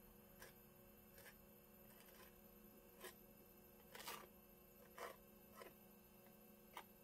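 Faint, short scrapes and dabs of a palette knife laying thick acrylic paint onto a canvas: about seven soft strokes, the loudest about four seconds in, over a quiet room.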